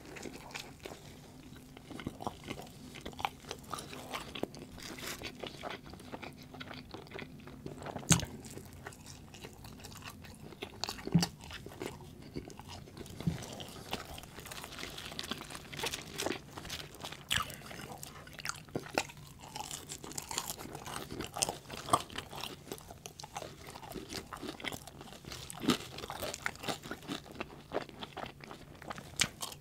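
Close-miked chewing of a fast-food sandwich and fries: wet mouth sounds and smacking, with sharp crunchy bites standing out louder every few seconds.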